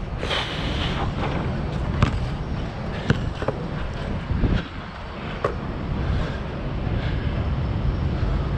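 A Nike True Grip basketball bouncing on an outdoor court a handful of times, sharp single bounces about a second apart, over a steady low rumble of wind and city traffic.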